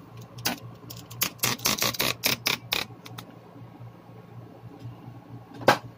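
A quick run of sharp clicks and taps lasting about two and a half seconds, then one loud click near the end, over a low steady hum.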